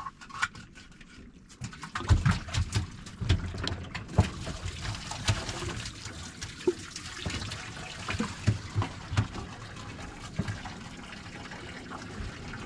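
Water splashing and sloshing with irregular heavy thumps, from a hooked striped bass thrashing at the surface as it is landed. It starts about two seconds in and is loudest for the next couple of seconds, then settles into lighter, steady splashing.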